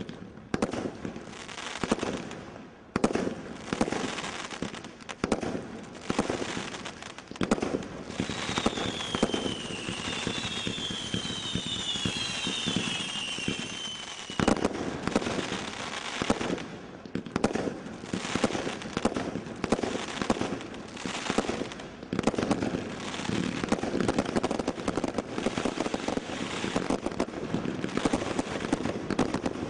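Maximum Showtime Category 3 combination roman candle firework firing a steady string of shots that burst in crackling stars. About eight to fourteen seconds in, several overlapping whistles with a slightly falling pitch sound through the shots.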